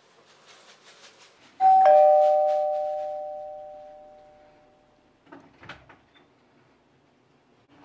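Doorbell-style two-tone ding-dong chime, a higher note and then a lower one, ringing out and fading over about three seconds. Before it, faint scattered clicks of crystal cat litter shifting under a kitten's paws, and a short rustle of litter a few seconds after.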